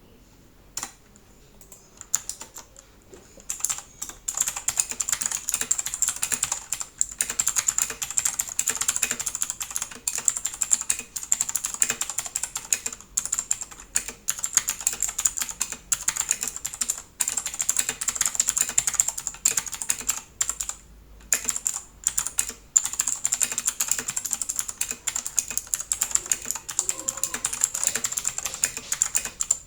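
Royal Kludge RK100 mechanical keyboard being typed on: a few single keystrokes, then fast continuous typing from about four seconds in, with a brief pause about two-thirds of the way through.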